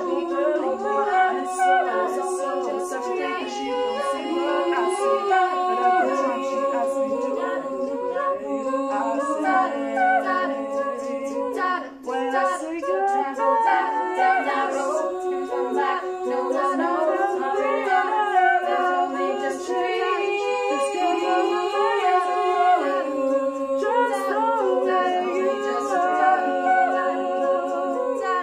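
Female a cappella group singing in several-part harmony: held chords that shift every second or two, with a brief drop in level about twelve seconds in.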